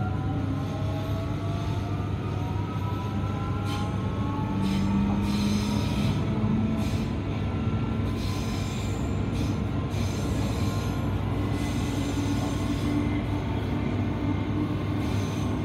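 Interior of a Queensland Rail SMU 220-series electric multiple unit under way: the electric traction drive whines, its pitch rising over the first several seconds as the train gathers speed, over a steady low rumble of the car. Through the middle come stretches of wheel-on-rail rattle and brief wheel squeal.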